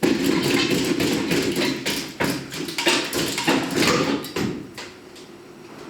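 The old front bumper of a 2007 Dodge Ram 2500 being pulled off its mounts: a quick run of knocks and rattles that dies away about four and a half seconds in.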